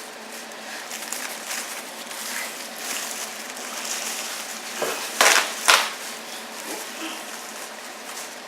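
Low room hiss with faint rustling, then two sharp knocks about half a second apart a little past the middle.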